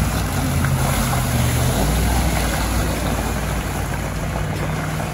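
Range Rover 4x4's engine running as it drives, its low note rising and falling with the revs over a steady haze of driving noise.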